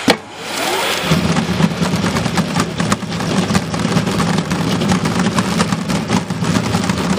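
Stainless-steel vegetable centrifugal dewatering machine switched on with a click, its motor spinning the loaded basket up with a rising whine over the first second. It then runs steadily with a low hum and a constant patter of small ticks and rattles.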